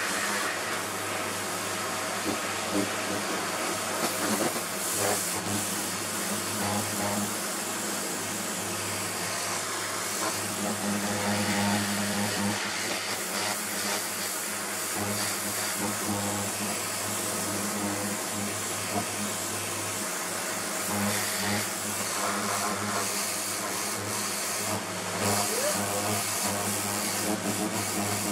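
Karcher pressure washer running steadily, its motor and pump humming under the hiss of the high-pressure water jet spraying a plastic sun lounger, the level swelling a little as the jet moves.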